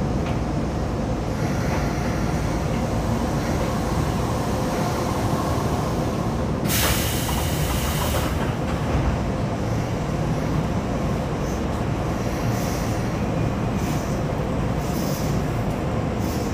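Electric commuter train running, heard from aboard: a steady rumble of wheels on rail, with a loud hiss for about a second and a half a little before the middle.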